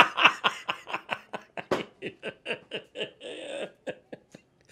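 A man laughing hard in a quick run of short bursts, about four a second, that gradually trail off, with a breathy wheeze a little past three seconds in.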